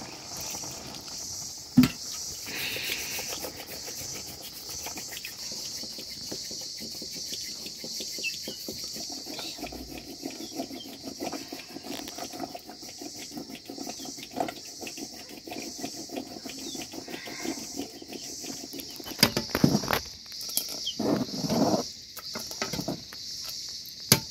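Long-handled ladle stirring a pot of simmering nettle curry, scraping and knocking against the aluminium pot, with one sharp knock about two seconds in and a few louder clatters near the end. Insects chirp steadily behind it in a pulsing rhythm.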